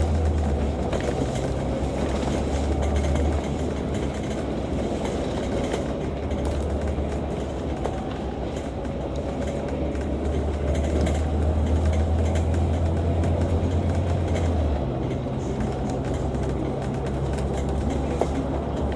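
Interior running noise of a Volvo B9TL double-decker bus under way: a steady low engine drone with a faint whine that rises and falls. The drone shifts about three seconds in and again near fifteen seconds in as the driving changes.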